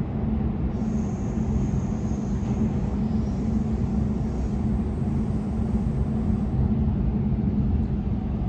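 Steady running noise of an electric passenger train heard from inside the carriage: a low rumble and a steady hum, with a faint high whine from about a second in that fades out before the end.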